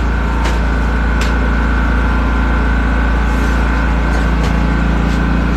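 Engine running steadily at an even speed, with a constant whine above it and a couple of light clicks.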